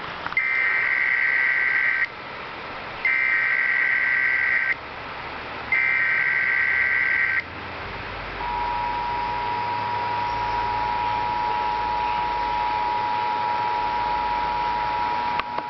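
Emergency Alert System broadcast opening: the SAME header, three bursts of rapid digital data tones each under two seconds with about a second's gap between them, then the EAS two-tone attention signal held steady for about seven seconds, over a constant background hiss.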